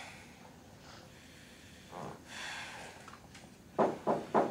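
A man struggling for breath: slow, rasping breaths, then three short, sharp gasps in quick succession near the end.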